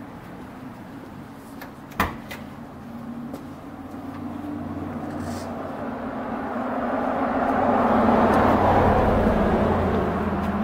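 Renault 5 GLT's door latch clicking open about two seconds in, a sharp click followed by a smaller one, over a steady low hum. A broad rushing noise swells and peaks near the end.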